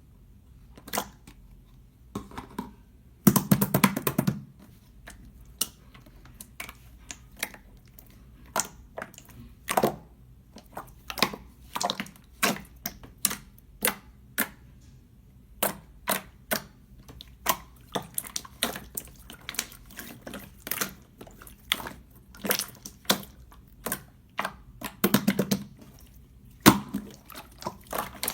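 Clear slime being worked by hand, giving irregular sticky clicks and small pops, with a denser run of crackling about three seconds in and again near the end.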